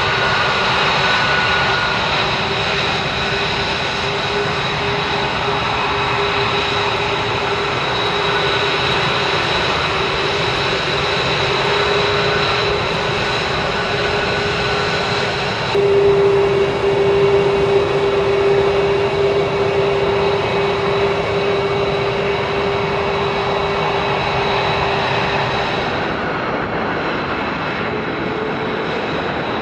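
Twin Pratt & Whitney F119 turbofans of taxiing F-22 Raptors running at low power: a steady jet roar with a high-pitched whine. About halfway the sound changes abruptly and grows louder, and it changes again near the end.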